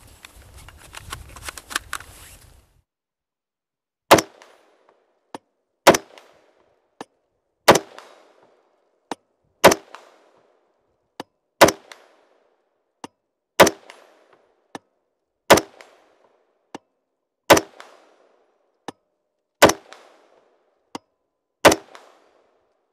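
Bravo Company Jack Carbine, a 5.56 mm AR-15 with a muzzle compensator, firing ten slow, evenly spaced single shots about two seconds apart, each with a short echo. A fainter shot falls between each pair. Before the shooting, a couple of seconds of clicks and rattles from the rifle being handled.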